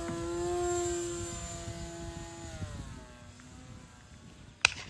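RC plane's motor and propeller droning overhead as one steady pitched tone, loudest about a second in, then dropping slightly in pitch and fading away as the plane flies off. A single sharp click near the end.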